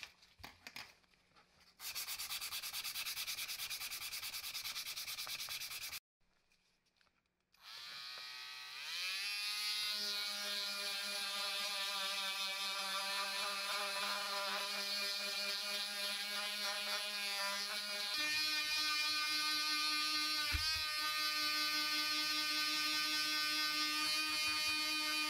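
Handheld triangular-pad detail sander sanding a plastic power-tool housing. After a few handling clicks, a stretch of steady buzzing cuts off abruptly; after a short gap the sander starts again, rising quickly to speed, and runs with a steady hum whose pitch changes about two-thirds of the way through.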